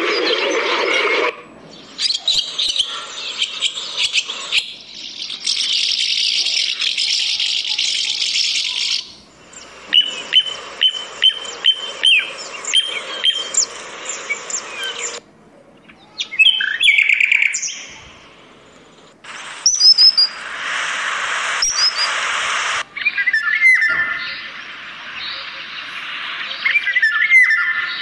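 A series of recorded bird songs and calls from several different species, played back one after another. Each recording lasts a few seconds and cuts in and out abruptly.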